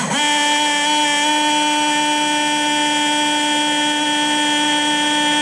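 Volkswagen xenon headlight washer pump, a small 12-volt electric pump, switching on and settling at once into a steady whine as it pumps water.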